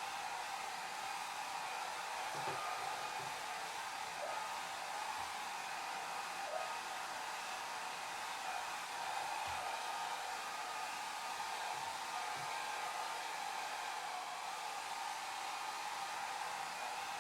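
Hair dryer blowing steadily: an even rushing hiss, strongest in the upper-middle range with little low end.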